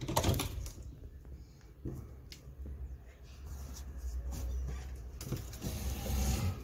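Kitten eating dry kibble from a plastic bowl: scattered small crunches and clicks over a low rumble, with rustling at the start and again near the end.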